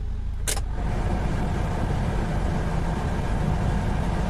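A dashboard control clicks about half a second in and the truck cab's air-conditioning blower comes on, a steady rush of air over the JAC truck's engine running at rest.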